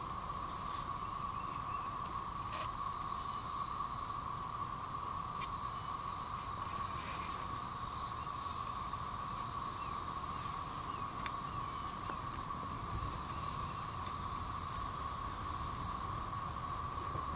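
Outdoor insect chorus: a steady, thin whine with a higher shrill buzz that swells and fades every second or two, and a few faint clicks.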